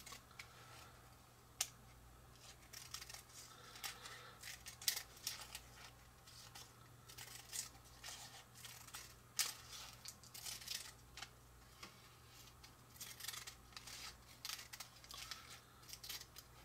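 Scissors snipping a narrow strip of parchment paper: a faint, irregular series of short snips, with light paper handling.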